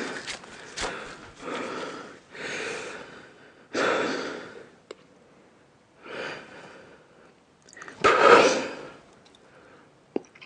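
A man breathing hard: separate loud, gasping exhales and sharp breaths a second or two apart, the strongest about 4 and 8 seconds in, typical of the burn after eating ghost-pepper noodles.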